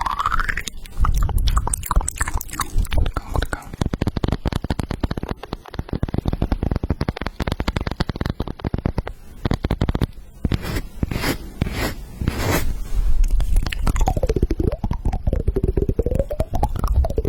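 Close-miked chewing and crunching of food: a dense crackle of bites and mouth sounds, with a run of sharper crunches a little past the middle.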